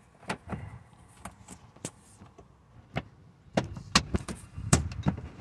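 Plastic dashboard trim panels of a Honda Element being pressed into place by hand: a scattered series of sharp clicks and knocks as the panel's retaining clips snap in, the loudest near the end.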